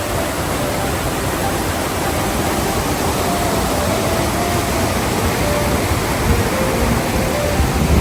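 Waterfall's steady roar of falling water, a dense, even rush with no breaks.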